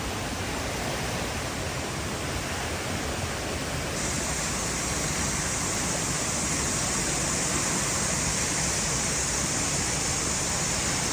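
Waterfall: a steady, unbroken rush of falling water that turns brighter and a little louder about four seconds in.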